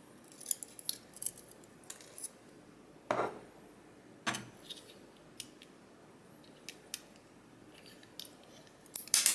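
Small metal lock pins and springs clicking and clinking as they are handled and taken out of a pin-tumbler cylinder, with a couple of duller knocks partway through and a louder metallic clatter near the end.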